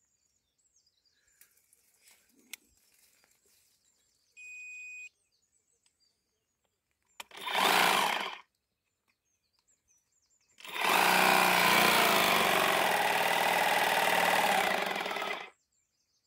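Battery-powered tea harvesting machine's motor-driven cutter bar running: a short burst about seven seconds in, then a longer run of about five seconds as it shears tea shoots. A short steady beep sounds a few seconds before the first burst.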